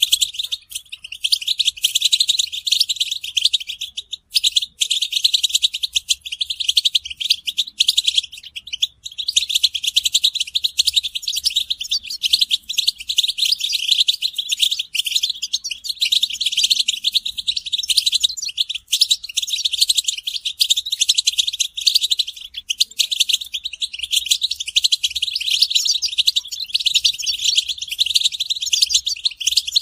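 Many European goldfinches chattering and twittering together: a dense, unbroken flock chorus of rapid high chirps. These are the goldfinch's mating and readiness calls, used as a lure to stir silent males into song. The recording sounds thin, with everything below the chirps cut away.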